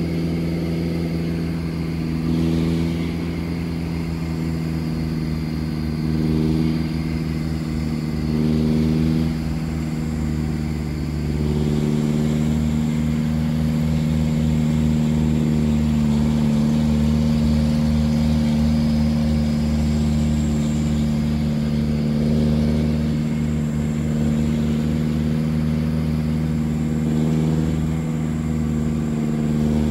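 Engine of a vehicle driving uphill, heard from inside its cab: a steady, loud drone with a throbbing low rumble, its pitch shifting a little about a third of the way through.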